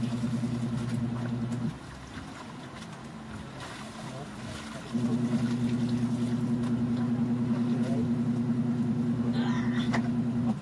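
An electric motor hums steadily, stops about 1.7 seconds in, starts again abruptly about 5 seconds in and cuts off just before the end. Underneath is the splash of water as laundry is rinsed by hand.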